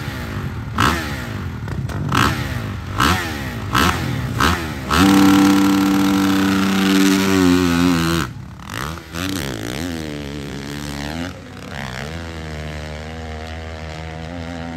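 Honda CRF single-cylinder four-stroke dirt bike blipping the throttle about five times in short sharp revs, then holding at high revs for about three seconds at the launch. After that it revs up and down through the gears, then settles into a steadier, more distant engine note as it climbs the hill.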